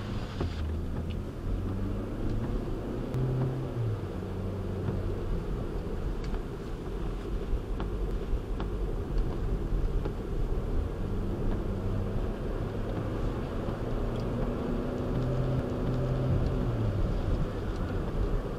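Car cabin noise while driving in heavy rain: a steady engine and road rumble whose pitch shifts as the car speeds up and slows, with scattered faint ticks of rain on the windshield.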